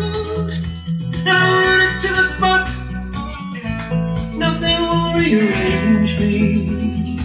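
Guitar-led music playing from a vinyl record on a Pioneer PL-50 belt-drive turntable fitted with a Stanton 600 cartridge, heard through the hi-fi.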